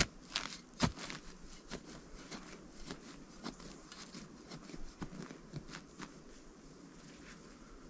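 Small folding spade working wooden support posts into soft soil: irregular scrapes and crunches, with a sharper knock a little under a second in.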